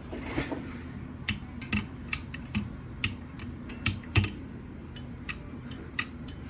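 Takita Seisakusho film-editing film counter clicking as its mechanism is worked: about a dozen sharp, irregular clicks and knocks over a low steady hum.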